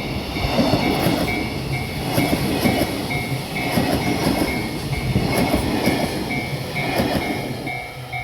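Freight train wagons rolling past with their wheels clacking over the rail joints in a steady rhythm, while a level-crossing warning bell rings in quick repeated dings. The train noise drops away near the end.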